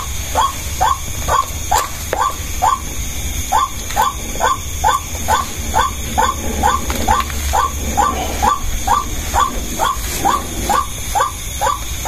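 An animal calling over and over at an even pace, about two and a half notes a second, each note short and falling in pitch. A steady high insect drone runs underneath.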